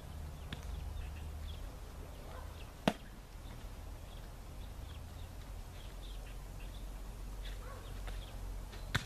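A sharp slap about three seconds in, a football smacking into a player's hands, and a second, smaller one near the end. Birds chirping throughout.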